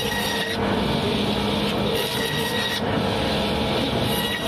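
Band saw running steadily, its blade rasping as it cuts through a thick chunk of raw katla carp.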